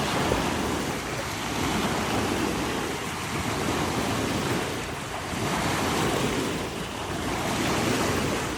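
A passing boat's wake washing up onto the shore, the water surging and easing in slow swells every few seconds.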